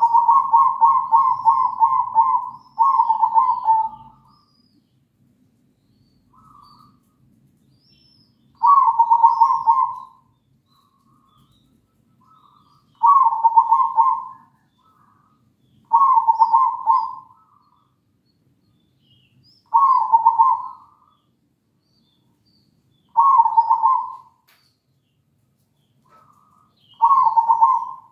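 Zebra dove (perkutut) cooing in rolling phrases of quick staccato notes: a long phrase and a short one at the start, then a shorter phrase every three to four seconds, about eight phrases in all.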